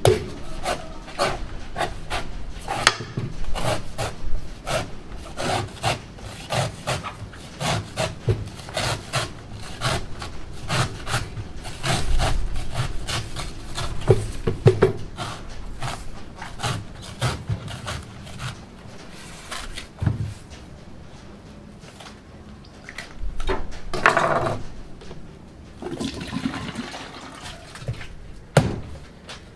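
Stainless steel knife chopping and shaving the husk of a green young coconut: a quick run of sharp chops, about two to three a second, that thins to a few scattered strokes after about twenty seconds.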